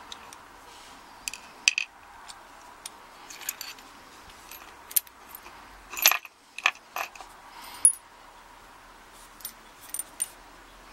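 Small metal parts of a brass padlock clicking and clinking against hand tools as it is taken apart, in scattered light taps with a quick run of louder clinks about six seconds in.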